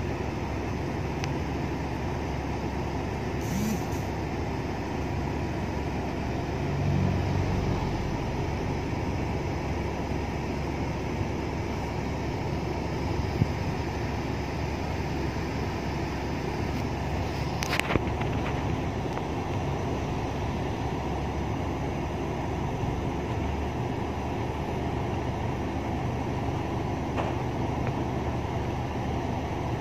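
Steady engine and road hum heard inside a car's cabin as it idles and creeps forward in a traffic jam. A few short clicks stand out about 4, 13 and 18 seconds in.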